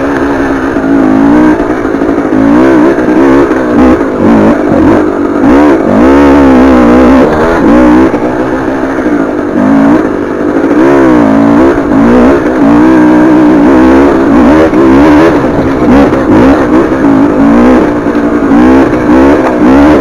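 KTM 300 TPI two-stroke enduro engine under load on a hill climb, the revs rising and falling every second or two as the throttle is worked on and off.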